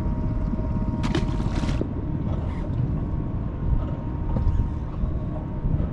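Wind rumbling on the microphone and water lapping on a small boat's hull, with a faint steady hum underneath and a short hiss about a second in.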